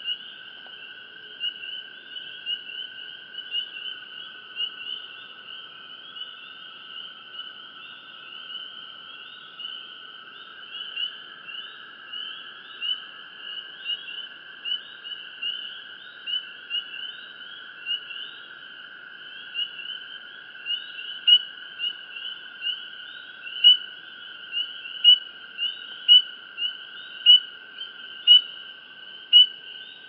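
Night chorus of calling creatures, which the uploader tags as crickets: a dense run of high, rapidly repeated chirps over a steady lower trill. From about two-thirds of the way in, one nearby caller stands out with loud, regular chirps about once a second.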